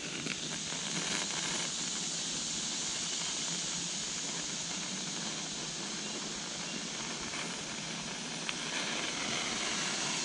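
Small tinder fires burning, a fire plug and match-lit fatwood scrapings: a steady soft hiss with a few faint crackles.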